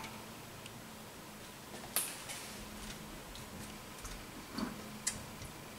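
A few isolated light clicks and taps of kitchen utensils being handled, about two seconds in and twice near the end, over a faint steady hum.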